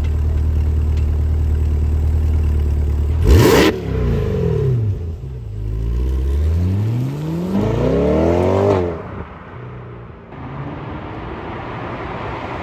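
Corvette C8 E-Ray's 6.2-litre V8 idling, then revved in neutral: a sharp blip a few seconds in whose pitch falls straight back, then a longer rev climbing steadily for a couple of seconds before it is let off past the middle. The last few seconds are quieter.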